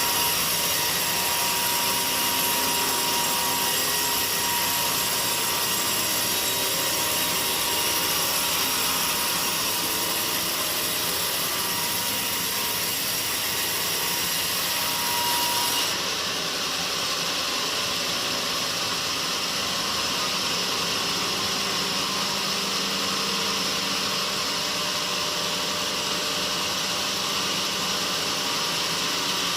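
Sawmill saw running steadily on teak logs. About halfway through, a high whine stops and the noise changes character.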